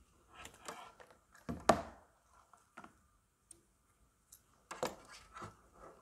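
Gloved hands handling an extension cable and wiring inside an electrical control cabinet: scattered knocks and rustles. The loudest knock comes a little under two seconds in, and another cluster of knocks comes near the end.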